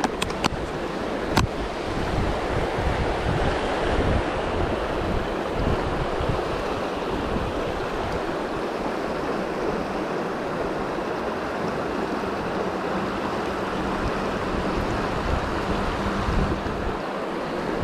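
River water rushing steadily, with a few sharp clicks in the first second and a half.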